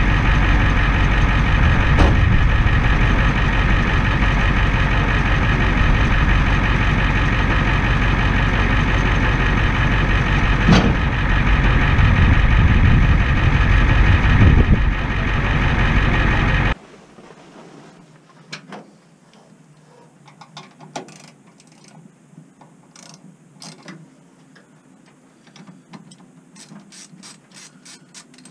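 A geared motor runs steadily with a loud whine and gear noise for about seventeen seconds and then cuts off abruptly. After that come faint, scattered clicks and taps of hand tools working in an engine bay.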